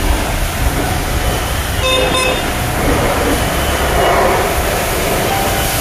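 Steady loud background noise of machinery and traffic, with a short vehicle-horn toot about two seconds in.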